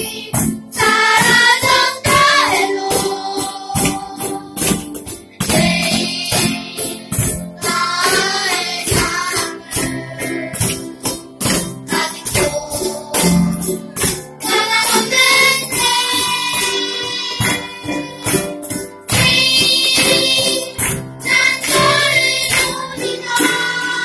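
Children's choir singing a song together, accompanied by keyboard, ukuleles and cajóns played as a steady beat.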